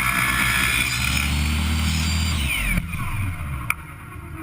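Ryobi 10-inch miter saw fitted with an Oshlun 52-tooth steel-cutting blade, running at reduced speed through a speed controller; a little over two seconds in, it is switched off and its whine falls away as the blade winds down. A single sharp click follows about a second later.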